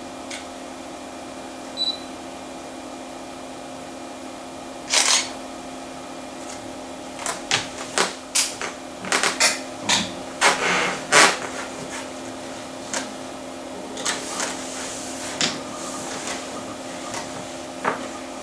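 Macintosh Plus with its hard disk: scattered sharp clicks and ticks, busiest from about 7 to 12 seconds in, from mouse-button clicks and hard-disk seeks as programs quit and Finder windows open, over a steady electrical hum with a low tone.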